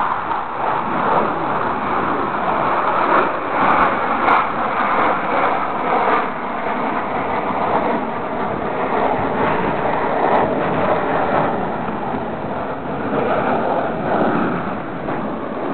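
Long rolling thunder, a continuous rumble that swells and eases several times.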